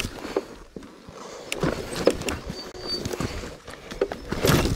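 Irregular knocks, crunches and scrapes of loose stones under an adventure motorcycle's tyres on a rocky dirt track, the loudest cluster near the end.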